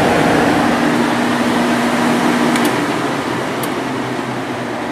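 1995 Sharp Comfort Touch window air conditioner running on fan only, a steady rush of air from the blower with a low hum that drops out about two and a half seconds in. The freshly oiled blower motor bearings run nice and quiet. There are two faint clicks near the middle.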